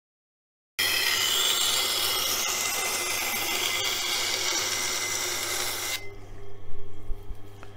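Steel knife blade ground against the 160-grit wheel of a motor-driven wet grinder: a loud, even grinding hiss over the motor's steady hum, starting abruptly about a second in. About six seconds in the blade comes off the wheel, leaving the motor hum and a few light knocks.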